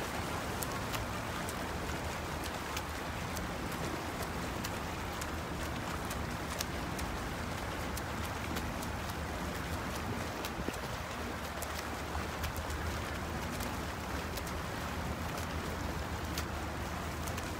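Swimmers splashing through freestyle strokes in a pool: a steady wash of water noise scattered with many small, sharp splashes.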